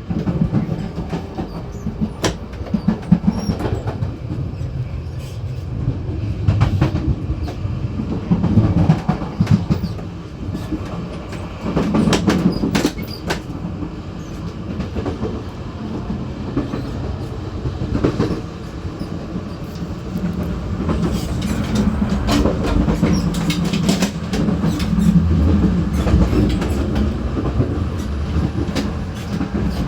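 Running noise at the gangway between two cars of a moving local commuter train: a steady low rumble with irregular clicks and knocks, and clickety-clack from the wheels over the rail joints.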